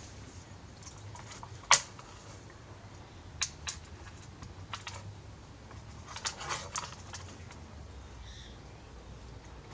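Scattered sharp clicks and light taps of small hard parts being handled on a bench: one loud click about two seconds in, then pairs of clicks and a quick cluster a few seconds later, over a faint low hum.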